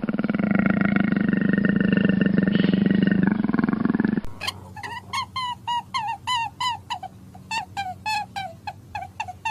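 A low, rough animal roar or growl held for about four seconds, then a sudden change to a different animal's quick series of short, high chirping calls, about two a second.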